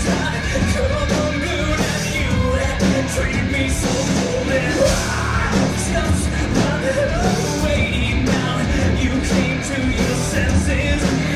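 Live rock band playing a song at full volume, with a voice singing or shouting over it.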